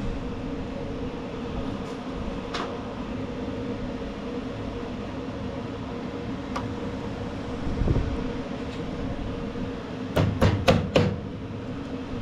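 A steady background hum, with a few scattered light clicks and a quick run of four or five sharp metallic clicks near the end, as small parts of a mower's rear-wheel drive are handled.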